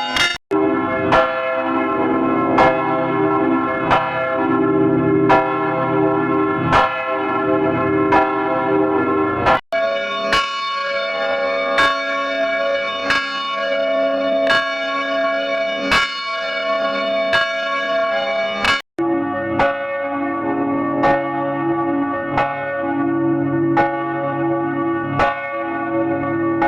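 Church bells ringing: struck strokes about every second and a half, each ringing on into the next. The ringing cuts out abruptly twice as one bell clip gives way to another.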